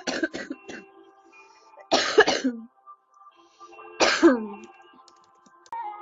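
A girl coughing in three bouts: a quick run of short coughs at the start, then a harsh cough about two seconds in and another about four seconds in, each trailing off in a falling tone from the throat. Faint music plays underneath.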